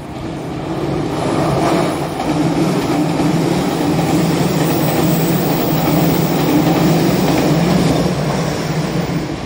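JR Kyushu 885 series "Sonic" limited express electric train passing on the tracks. Its steady rush of wheel and running noise builds over the first couple of seconds, holds, and eases off near the end.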